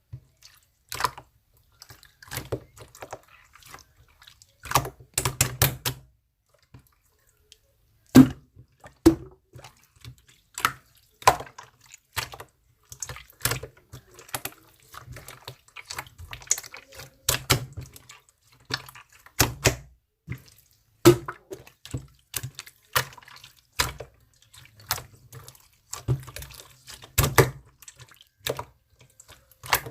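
Irregular wet clicks, pops and soft thuds, coming at uneven intervals, some close together and some a second or more apart.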